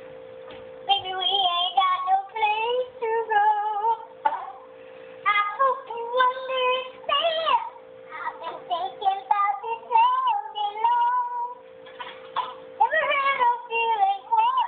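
A boy singing on his own, in sung phrases broken by short pauses, over a steady low hum.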